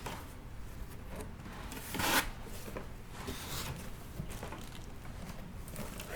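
Cardboard packaging being opened and handled: flaps and inserts rubbing and scraping against each other, with a louder rustle about two seconds in.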